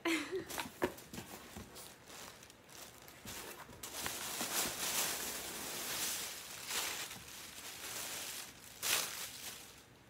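Rustling and crinkling of packaging and clothing being handled and pulled out of a cardboard shipping box, building up about four seconds in, with a short louder crinkle near the end.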